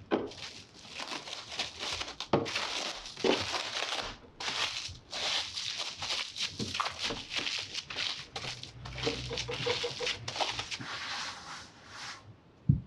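Plastic cling film crinkling and rustling in irregular bursts as hands wrap and press a ball of cookie dough in it. A single dull thump near the end.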